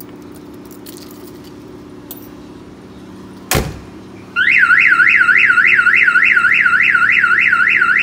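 Viper aftermarket alarm on a 1993 Ford F-150 going off: a single heavy thump about three and a half seconds in, then just under a second later the siren starts, a loud, fast rising-and-falling wail of nearly three sweeps a second. The alarm has been tripped by disturbing the truck while it is still armed.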